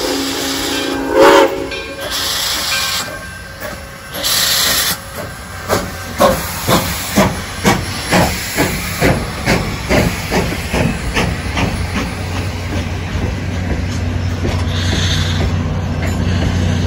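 Steam locomotive starting a train. It gives bursts of steam hiss and one short, loud whistle toot, then its exhaust chuffs at about two a second, quickening slightly. Near the end a steady low drone of a diesel locomotive rolling past takes over.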